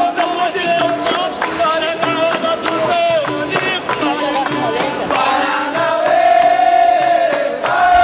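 Capoeira roda music: berimbaus playing while a group sings in chorus and claps along in a steady rhythm.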